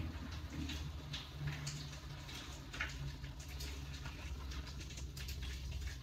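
Light, scattered clicks and scratchy rustling of small objects being handled by hand, over a faint steady low hum.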